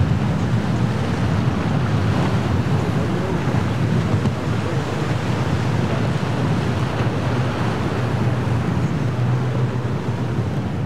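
Wind buffeting the microphone over breaking surf and choppy water, with the steady low drone of outboard motors on center-console boats running through a rough inlet.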